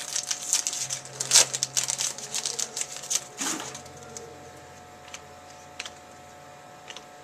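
Trading cards and card packs being handled: a quick run of crisp clicks and rustles as cards are flipped and shuffled, thinning out to a few light ticks after about four seconds, over a faint steady hum.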